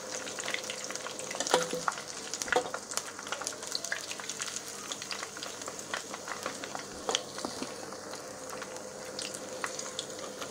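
Crumb-coated paneer pieces deep-frying in hot oil in a wok: a steady sizzle with dense crackling, the paneer fried crisp. A few sharper clicks stand out, about one and a half, two and a half and seven seconds in.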